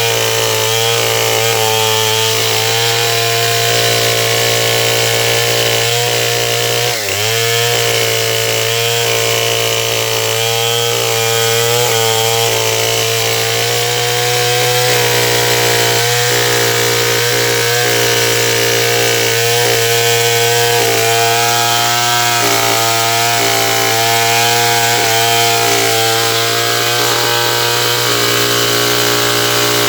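Stihl 070 two-stroke chainsaw running hard at a steady high pitch while cutting sengon wood. About seven seconds in, its note drops sharply for a moment and picks straight back up.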